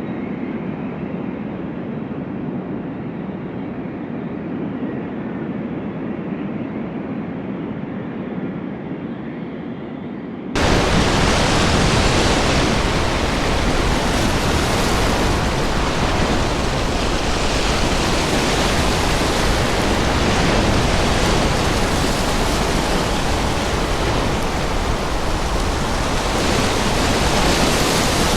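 Storm wind and breaking sea surf: a low, muffled rumble for about the first ten seconds, then it switches suddenly to a much louder, steady, full hiss of wind and surf.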